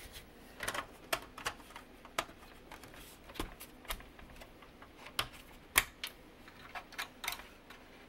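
Irregular clicks and knocks of hands working parts inside an open Macintosh Performa 475 case, tucking the hard drive's ribbon cable and the wiring into place. The sharpest knock comes a little before six seconds in.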